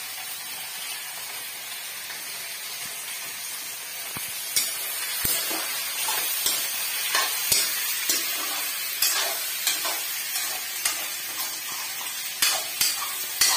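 Meat and onions frying in hot oil in a kadai, giving a steady sizzle. From about four seconds in, a metal spatula scrapes and clacks against the pan in irregular strokes as the meat is stirred.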